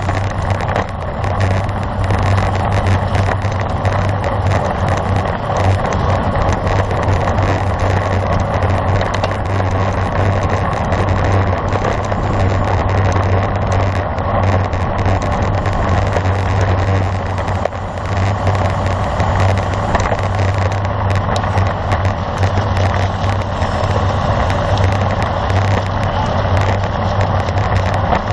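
Steady rush of wind across the microphone of a camera on a moving road bike, mixed with the hiss of tyres on the road.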